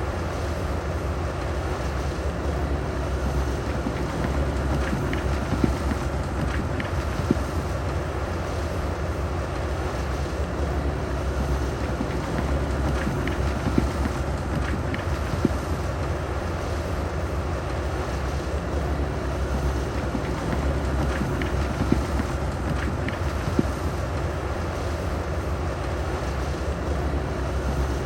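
Heavy diesel engine of a bulldozer running steadily under load, with scattered sharp clanks every few seconds.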